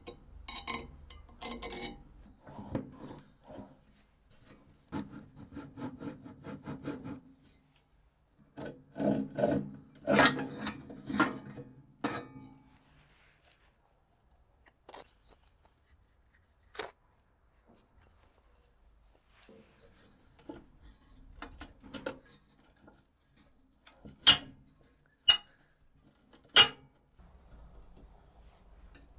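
Hand work rubbing and scraping, in quick runs of strokes, then a handful of sharp taps a second or two apart near the end.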